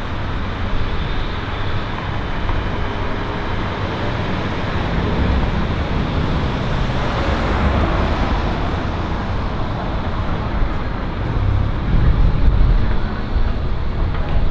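Street traffic noise: cars driving past while a Bombardier E-class tram rolls slowly along the street track, with a heavy low rumble and no distinct tones.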